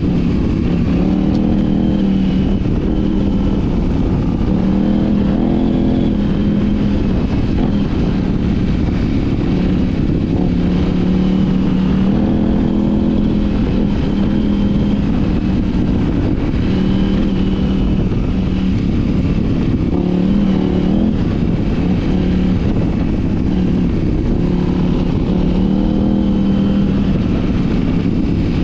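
KTM 790 Adventure R's parallel-twin engine running at steady mid revs while riding, its note rising and falling a little every few seconds as the throttle is opened and eased. It runs through an Arrow titanium slip-on exhaust with a de-cat mid pipe.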